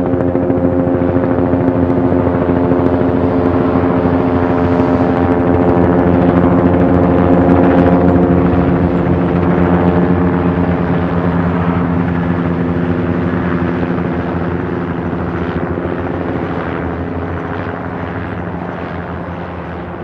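Helicopter in flight: rapid rotor-blade chop over a steady engine drone, growing a little louder toward the middle and then fading away over the last several seconds.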